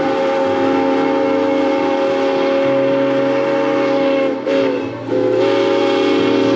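Chime steam whistle of narrow-gauge K-36 steam locomotive No. 480 blowing a long, loud blast as the engine approaches. It wavers and breaks off briefly about four and a half seconds in, then sounds again.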